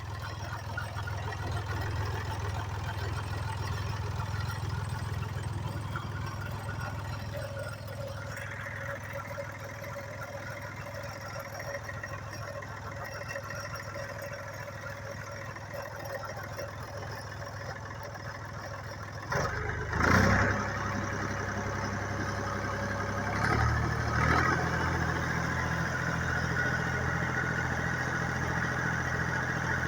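Landini Blizzard 50 tractor's three-cylinder Perkins diesel running at a steady idle. About two-thirds of the way through there is a brief louder burst, and a few seconds later the engine note steps up and holds a little higher.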